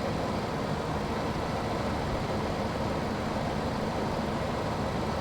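Lincoln Navigator's 5.4-liter V8 idling steadily with the heater on full, run to bleed trapped air out of the cooling system after a heater-hose repair.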